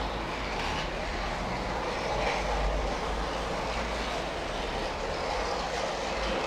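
Märklin model train running along its track: the steady running noise of its small electric motor and its wheels rolling on the rails.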